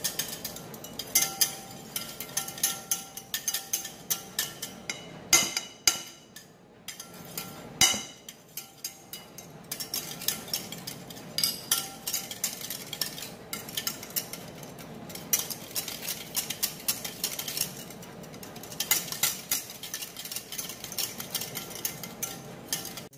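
Wire balloon whisk beating egg yolks with vinegar and mustard in a bowl, its wires clicking and scraping rapidly against the bowl, with a couple of short pauses. This is the yolk base being beaten for mayonnaise before the oil goes in.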